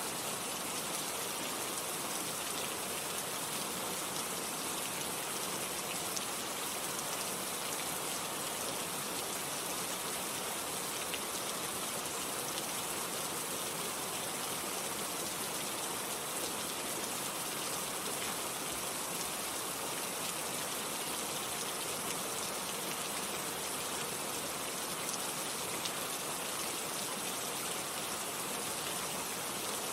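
Steady heavy rain falling on foliage and surfaces, a dense even hiss of many drops with no change in strength.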